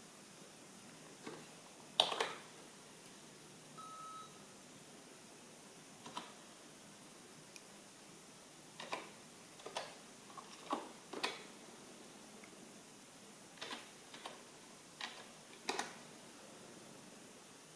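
Scattered single keystrokes on a computer keyboard, some a second or less apart and others several seconds apart, the loudest about two seconds in. A short electronic beep, one steady tone held for under half a second, sounds about four seconds in.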